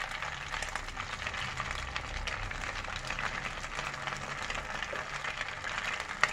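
Rice patties frying in hot oil in a small frying pan: steady sizzling with fine crackling, and one sharp click near the end.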